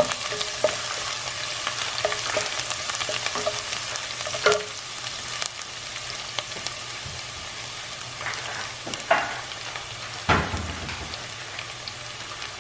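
Minced garlic sizzling and crackling in hot oil in a stainless steel pan as it toasts, with a wooden spatula stirring and scraping now and then. A louder knock comes near the end.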